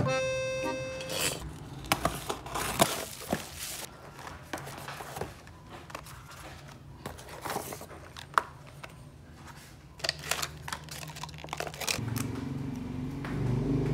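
Scattered rustling, clicks and small knocks of things being handled, busiest in the first few seconds, with a low voice coming in near the end.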